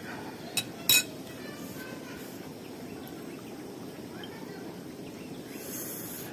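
Two sharp clinks of tableware about half a second apart, the second louder and ringing briefly, like a utensil striking a plate or bowl. A steady low hum runs underneath.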